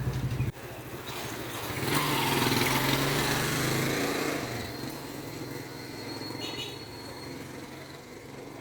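Boeing 777-300ER's GE90 jet engines passing in a low flyby: a broad roar swells about two seconds in, peaks, then slowly fades away. A low hum cuts off abruptly about half a second in.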